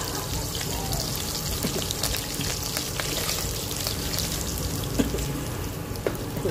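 Chopped garlic and sliced onion frying in hot oil in a stainless steel pan: a steady crackling sizzle, with a sharper click about five seconds in.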